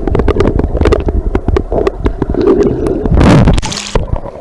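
Muffled underwater rumble and bubbling around a submerged camera, with many small clicks and knocks. About three seconds in comes a loud rush of water as the camera breaks the surface.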